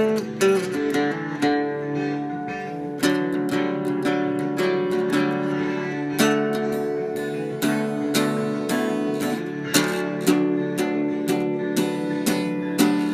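Instrumental acoustic guitar music, strummed chords with frequent sharp attacks.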